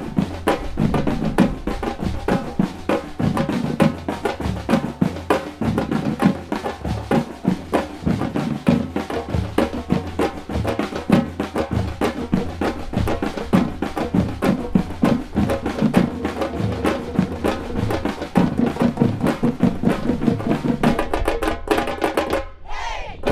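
A percussion ensemble of many drums, shoulder-slung drums and tall wooden hand drums, playing a fast, steady merengue rhythm together. Near the end the pattern changes and the drumming breaks off for a moment before coming back in.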